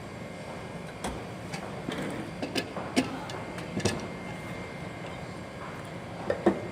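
Scattered sharp clicks and light knocks of the laminating mould and tray being handled at an OCA lamination machine, over a steady machine hum; two louder knocks come near the end.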